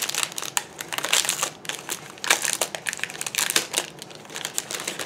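Clear plastic wrapping crinkling as hands handle it and open it, in irregular rustles and sharp crackles.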